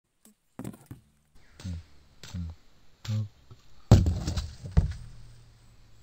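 A string of knocks and thuds as hands work on a cardboard-box pit trap dug into the ground: several short hollow thumps, then the loudest knock about four seconds in, with a short fading tail, and one more just after.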